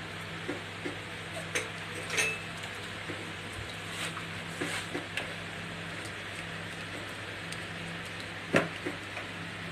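Scattered light clinks and taps of kitchen utensils against dishes and glassware, a second or more apart, with a small cluster just before the end.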